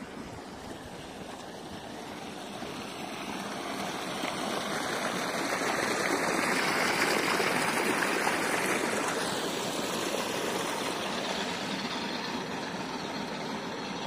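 Muddy pumped water rushing and splashing into a dirt channel, growing louder towards the middle and then easing off, over the steady running of an engine.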